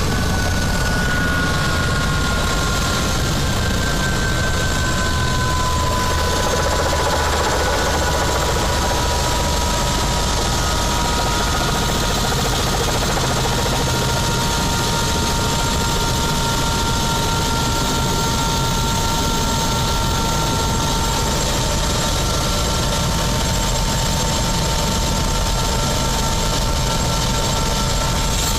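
Helicopter turbine and rotor running, heard from inside the cabin while on the ground: a steady loud rumble with a turbine whine that drifts down in pitch over the first several seconds and then holds steady.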